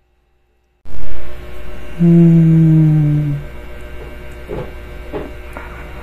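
Audio cuts in with a sudden loud sound about a second in. It is followed by a low, held hum of a person's voice lasting about a second and a half, sinking slightly in pitch, over a steady background hum. A couple of faint clicks come near the end.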